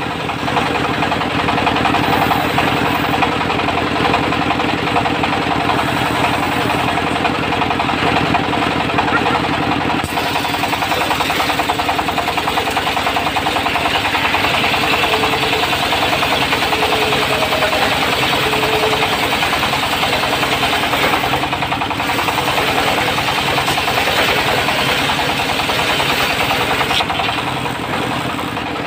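Diesel engine of a portable circular sawmill running steadily, with a dense engine pulse; the sound shifts slightly about ten seconds in, and a higher hiss stands out in the middle.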